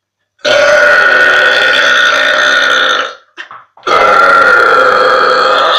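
Two long, loud burps from a young woman, each lasting two seconds or more, with a short pause between them.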